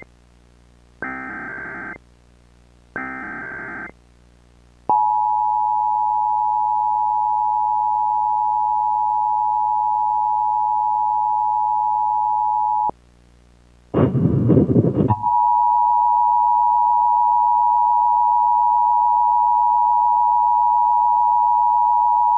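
Emergency Alert System tones. First come two one-second bursts of the SAME digital header. Then the two-tone EAS attention signal is held steady for about eight seconds and breaks off. A second of harsh noise follows, and then the attention signal starts again and holds.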